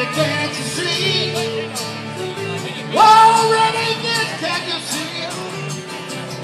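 Live country song played over a PA: guitars with a man singing, the voice coming in loudest about three seconds in.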